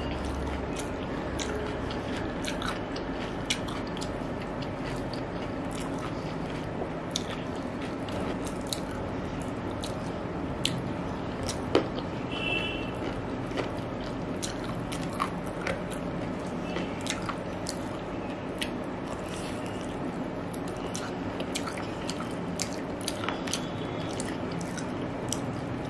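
Close-up mouth sounds of a person eating biryani by hand: chewing, with many short sharp clicks and smacks scattered throughout, over a steady background noise.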